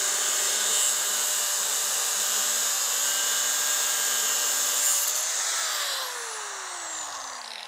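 Angle grinder with a cutoff disc cutting through the steel tube of a tractor PTO drive shaft, a steady high grinding whine. Near the end the grinder is lifted off, and the disc spins down with a falling whine.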